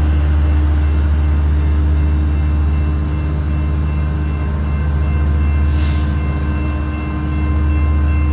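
Steady low rumble of a Metrolink diesel train that has just passed, moving away along the track, with a short hiss about six seconds in.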